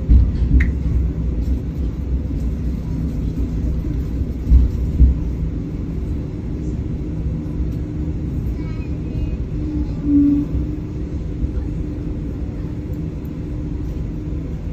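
Steady low rumble of a train running on the rails, with a few heavier knocks and a faint steady tone about ten seconds in.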